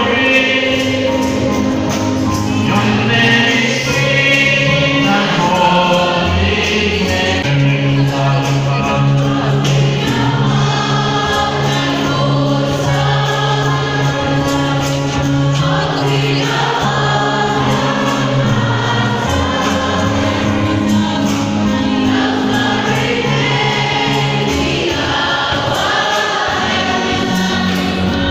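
A choir singing a gospel-style Christian hymn, with long held low notes underneath that change every few seconds.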